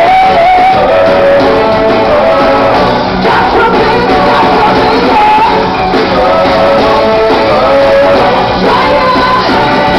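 Live band performance of a pop-rock song: a male lead singer singing over electric guitar, bass and drums, loud and continuous.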